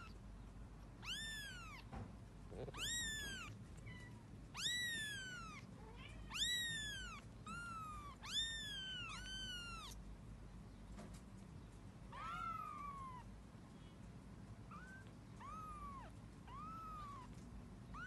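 Very young kittens mewing: a string of high, thin mews, each rising and then falling in pitch, coming about once a second, then fainter, lower and more spaced out in the second half.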